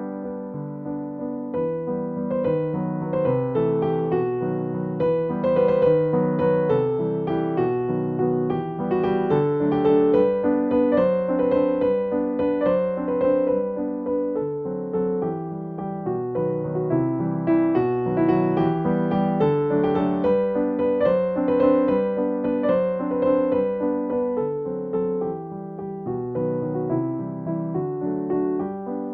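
Background music: soft solo piano playing a gentle melody.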